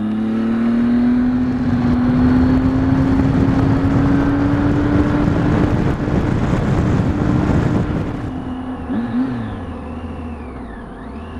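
Triumph Tiger 800 XCX motorcycle's three-cylinder engine pulling under acceleration, its note slowly rising, with wind rushing over the microphone. About eight seconds in the wind noise drops away and the engine eases off, with two short rises and falls in its note.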